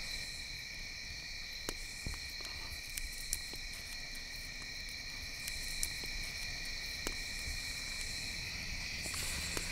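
Crickets chirping in a steady chorus, with a few sharp pops from the embers of a campfire.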